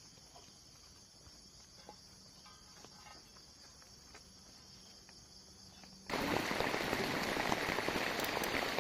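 Crickets and other insects chirring steadily and faintly, with a few soft clicks. About six seconds in, a loud, dense patter of rain cuts in abruptly.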